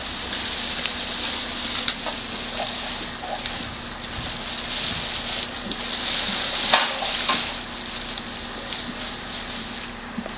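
Wind on the microphone with a crackling rustle of plastic bags and wrappers in a heap of mixed household waste, and a few sharper crackles about two-thirds of the way through.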